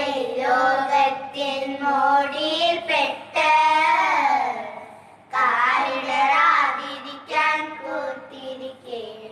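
Young children singing a Malayalam Christian devotional song with no instruments, in sung phrases with a short pause for breath about five seconds in.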